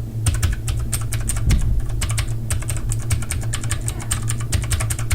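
Fast typing on a Redragon K552 Kurama tenkeyless mechanical keyboard with Cherry MX Blue clone switches: a rapid, continuous stream of clicky keystrokes over a steady low hum.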